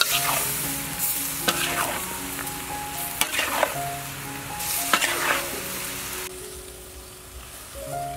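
Bell pepper and garlic flower stems sizzling in a hot wok while a metal spatula stirs them, with sharp clinks of the spatula against the pan every second or two. The sizzle quietens about six seconds in. A light melody of background music plays throughout.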